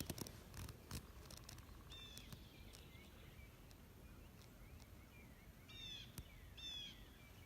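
Faint small-bird calls in quiet open country: three short bursts of quick, high, repeated chirps, the last two close together near the end. A few soft clicks come in the first second.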